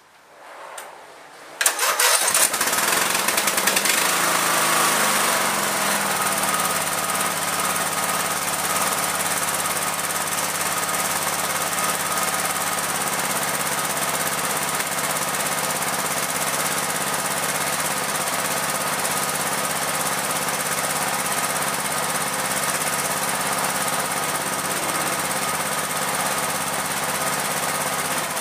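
Craftsman riding mower's 18.5 hp Briggs & Stratton OHV engine cold-started: a brief crank, then it catches about two seconds in and runs steadily, its speed settling over the first few seconds.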